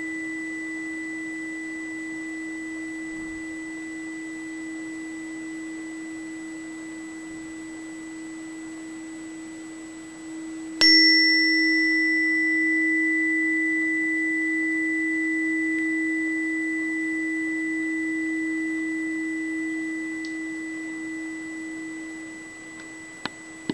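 Tuning fork tuned to E at 320 Hz ringing with one steady, slowly fading tone. About eleven seconds in it is struck again with a sharp click, and the tone jumps louder and then slowly fades. A couple of faint clicks come near the end.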